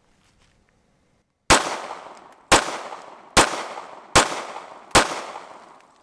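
Five shots from a Sig Sauer P320 9mm pistol fired at a steady, unhurried pace, the first about a second and a half in and the rest under a second apart, each shot trailing off in a long echo before the next.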